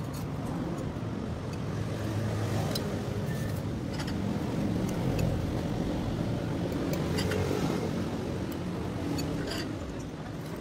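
Road traffic passing close by, a steady engine-and-tyre rumble that swells in the middle and eases off near the end. A spoon and fork clink against the bowl a few times.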